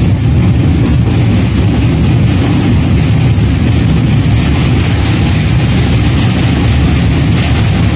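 Indian Railways passenger train running across a steel truss girder bridge, a loud steady rumble of wheels and structure heard at the coach window.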